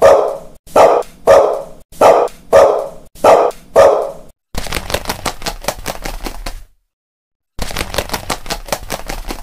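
A dog barking repeatedly, about seven barks at an even pace. After that come two runs of rapid clicking, each about two seconds long, with a silent gap of about a second between them.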